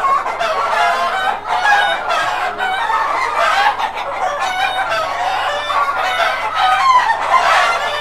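A flock of Black Australorp chickens, mostly laying hens with a few roosters, calling over one another with no break.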